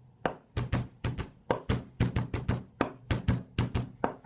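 A fist pounding a beat on a wooden desk: a rhythmic run of sharp knocks, about four to five a second.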